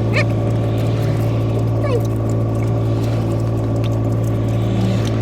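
Steady low mechanical hum, like a running vehicle engine, with a few short faint chirps over it.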